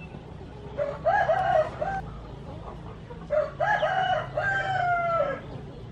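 A rooster crowing twice, each crow broken into several syllables, the second ending on a long falling note.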